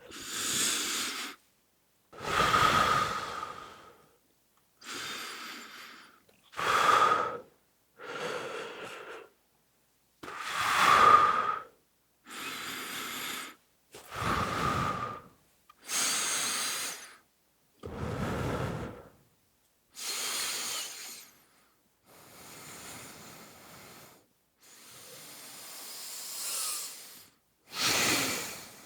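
A person taking deep breaths in and out, about fourteen in a row, each a second or two long with short silent gaps between them.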